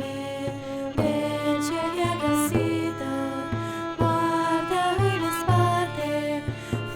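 Instrumental passage of a song: bowed strings, cello and violin, playing a melody over a steady beat with a strike roughly every second.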